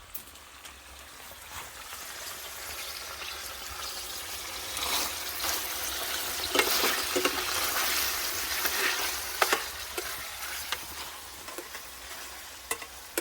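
Food sizzling in a hot frying pan while being stirred: the sizzle grows louder toward the middle and then eases off, with several sharp clicks of a utensil against the pan.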